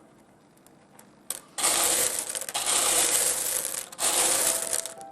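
Small pieces of rough opal clinking and clattering together as they are moved around. The clatter starts about a second and a half in and breaks off briefly near four seconds.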